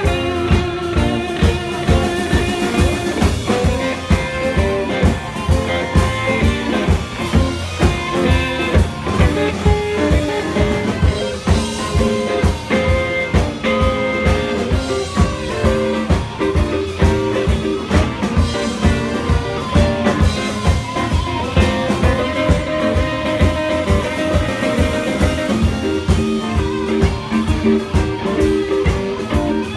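Blues-rock music: guitar over a steady drum-kit beat.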